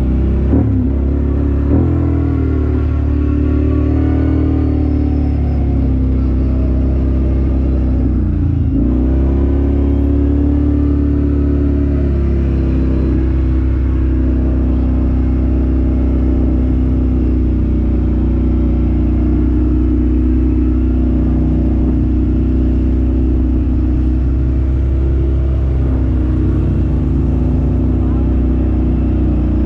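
Motor vehicle engine running continuously under load, its pitch dropping sharply and climbing back a couple of times near the start and again about eight and a half seconds in, then running steadily.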